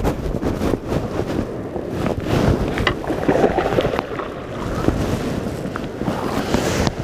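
Wind buffeting the microphone, with water splashing as a hooked bass thrashes at the surface beside the kayak about halfway through.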